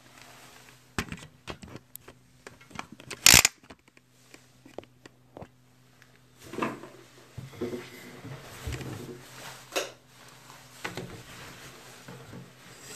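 Handling noise from a smartphone being moved about and gripped: scattered clicks and rustling, with one loud sharp knock a little over three seconds in, over a faint steady hum.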